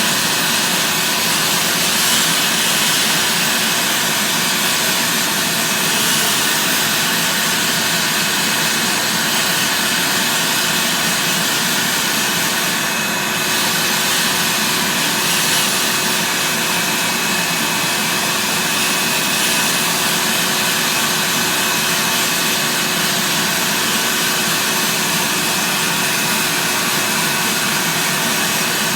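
Vacuum cleaner running steadily and loudly on car carpet, a constant rushing noise with a steady whine.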